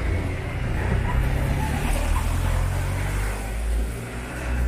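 Low rumble of road traffic on a wet city street, over a faint steady hiss.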